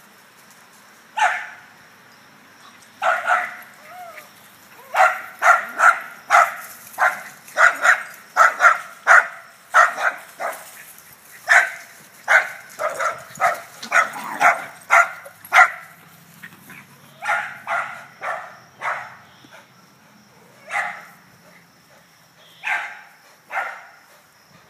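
A dog barking repeatedly in short, sharp barks as dogs chase each other in play. A single bark about a second in, then a fast run of barks, thinning out to single barks near the end.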